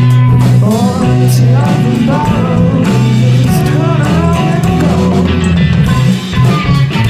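Psychedelic rock song playing: electric guitar, bass and drums, with a singing voice over them.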